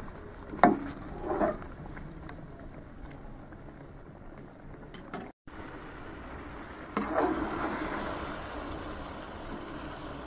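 Chicken karahi curry bubbling and sizzling in a metal karahi as its yogurt liquid cooks down over the flame. A metal spatula clicks against the pan about half a second in, and the sizzle grows louder from about seven seconds in as the chicken is stirred again.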